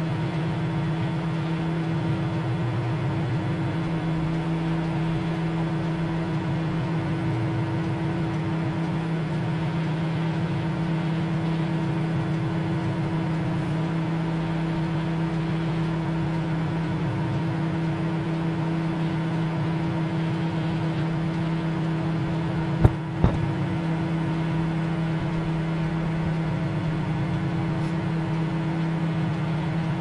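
Hamilton Beach microwave oven running with a steady hum while it heats water in a microwave tea kettle, the recording sped up to about double speed. Two sharp clicks close together about 23 seconds in.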